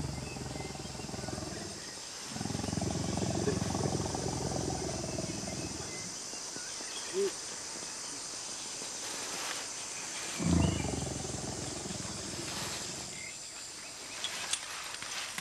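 Asian elephant calling: a long, low call about two seconds in, lasting some three and a half seconds, and a second, louder one starting about ten seconds in. A steady chirring of insects runs underneath.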